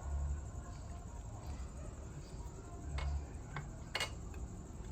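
A few sharp, light metallic clicks from engine parts and tools being handled during a bearing check, over a low rumble.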